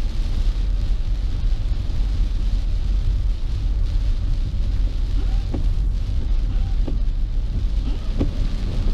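Rain hitting a moving car and steady road and tyre rumble, heard from inside the car's cabin.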